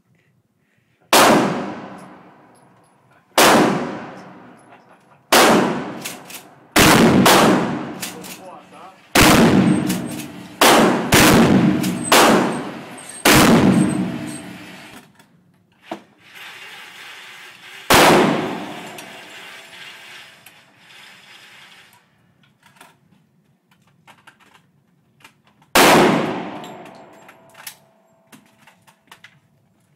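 Gunshots from a wood-stocked rifle, about a dozen single shots at uneven intervals. Each shot has a ringing tail that fades over a second or more. They come in a quick run, then one more shot near the middle and a last one a few seconds before the end.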